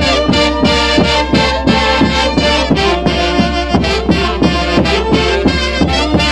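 Live music from a Peruvian orquesta: a melody over a steady beat of about three strokes a second.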